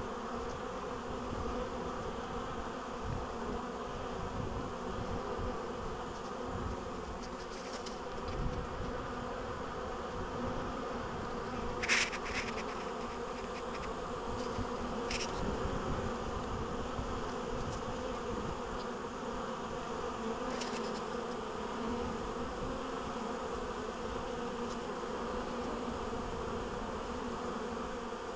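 Steady buzzing of many honeybees flying in and out of a hive entrance: busy spring foraging traffic, with foragers returning loaded with pollen. A brief sharp high sound cuts through about twelve seconds in, and another about three seconds later.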